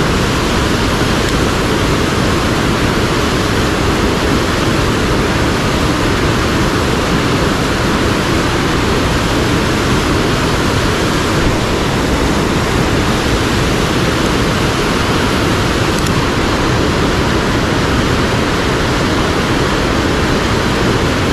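Steady rush of a mountain headwater stream, water pouring over rocks and small falls.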